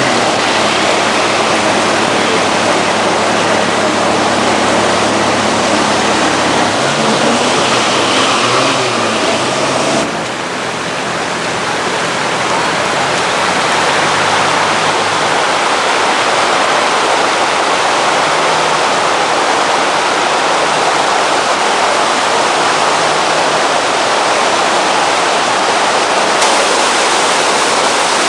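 Loud, steady rush of floodwater. A low engine hum runs underneath for the first several seconds.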